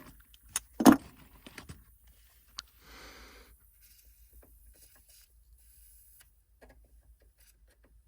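Sharp metallic knocks and clinks from hands and tools working on an evaporator coil: two loud knocks under a second in, then small clicks. About three seconds in comes a short rush of noise, then only faint ticks.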